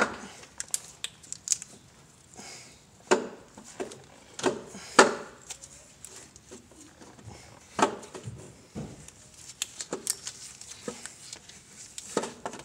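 Irregular metal knocks and clatters as the Eurovan's Bosch 150 A alternator is worked out by hand, its housing bumping against surrounding engine parts. Some knocks ring briefly.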